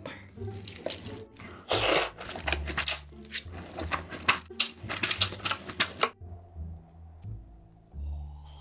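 Person slurping and chewing noodles from a bowl of noodle soup: wet slurps and clicking mouth sounds, with one loud slurp about two seconds in. The eating sounds cut off abruptly about six seconds in, leaving only quieter low tones.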